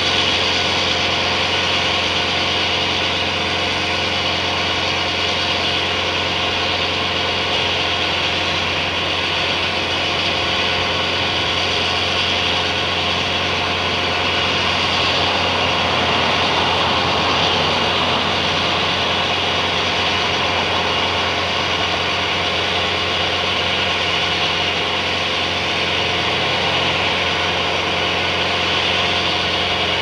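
Tow-behind wood chipper's engine running steadily at full power while the machine is jammed with a tree, so no wood is being chipped.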